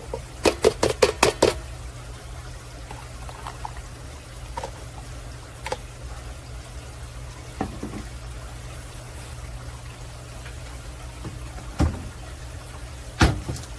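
Diced apples poured from a plastic measuring cup into a stainless steel stand-mixer bowl: a quick run of about six knocks at the start, then a few scattered single taps as the last pieces drop and the cup is knocked against the bowl.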